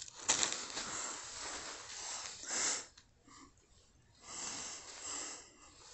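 Rustling and handling noise close to the microphone as a purse strap is pulled on over the head, in two stretches with a near-silent pause of about a second in the middle.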